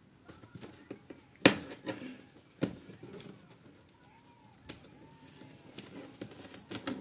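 Cardboard laptop box and its packaging being handled and pried at: scattered clicks and knocks, with a sharp knock about a second and a half in and another near three seconds, and rustling picking up near the end as the packaging comes loose.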